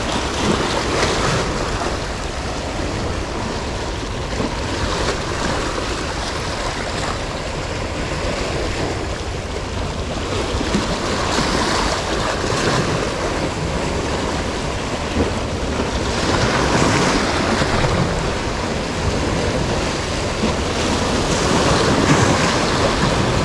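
Sea waves washing in over shoreline rocks, the surf swelling louder in several surges, with wind buffeting the microphone.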